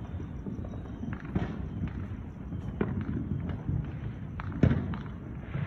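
Fireworks going off in the neighbourhood: sharp pops and bangs at irregular intervals, the loudest about three-quarters of the way through, over a steady low rumble.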